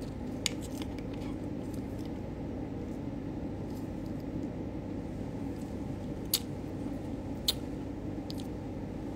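Steady low background hum with a few brief sharp clicks, the two strongest about six and a half and seven and a half seconds in: the plastic of a juice stick sachet being squeezed and sucked at the mouth.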